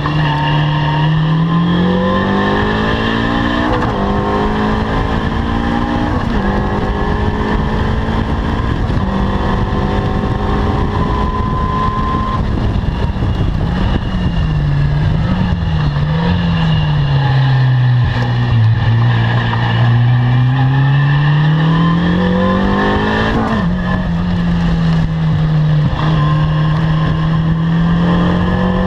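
Caterham R300 race car engine working hard on track. Its pitch climbs and falls, with sudden steps at gear changes about 4, 6 and 23 seconds in.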